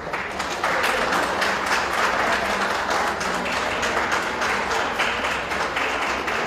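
Audience applauding: many hands clapping, starting abruptly and keeping up steadily.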